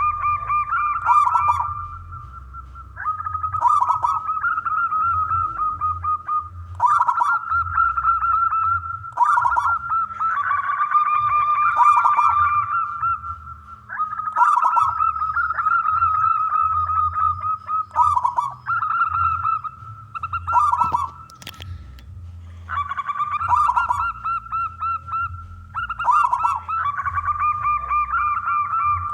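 Zebra dove (perkutut) cooing: rolling, warbling coo phrases repeated every few seconds with short pauses between them. A single sharp click comes about two-thirds of the way through.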